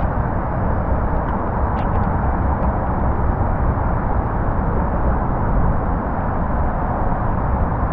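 Strong wind buffeting the camera microphone: a steady, deep rushing noise that does not let up.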